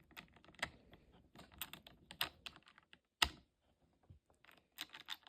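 Scattered light clicks and rattles of a cordless mini chainsaw's parts being handled as the bar and chain are fitted by hand, with one sharper click a little past halfway.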